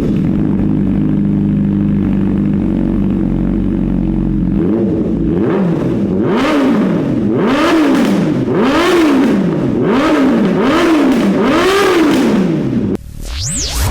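Honda CBR1000RR inline-four engine idling, then blipped through a string of quick revs, about one a second, each rising and dropping back. Near the end it cuts off suddenly and a rising whoosh takes over.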